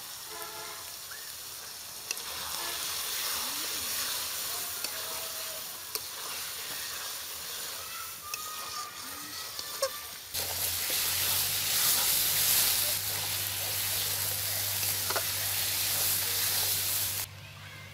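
Chicken frying in spiced masala in a metal pan, sizzling as yoghurt is added and a metal spatula stirs and scrapes it. The sizzling jumps louder about ten seconds in and drops away shortly before the end.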